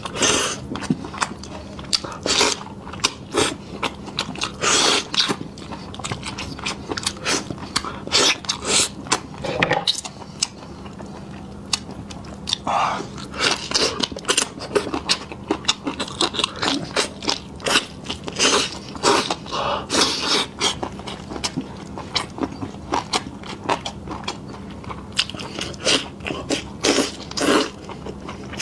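A person eating close to the microphone: chewing and biting with irregular crunchy, wet mouth clicks, over a faint steady hum.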